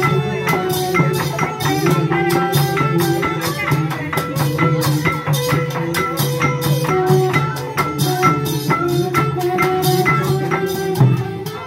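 Live traditional Khmer ensemble playing for a masked dance: drums and hand percussion keep a fast, steady beat under a repeating melodic line.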